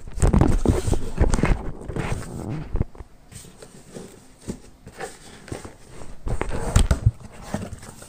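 Cardboard shipping box being pulled open by hand: flaps torn apart from the packing tape, with rustling, scraping and knocks of the cardboard, loudest in the first second and again near the end.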